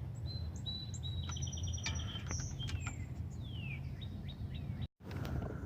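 Small birds chirping: short whistled notes, a rapid trill and a few falling whistles, over a steady low background rumble.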